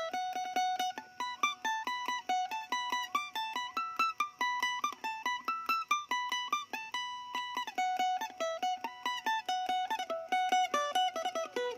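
An acoustic Isan phin, a Thai lute, plays a quick melody of plucked notes, several a second, over a steady ringing drone note.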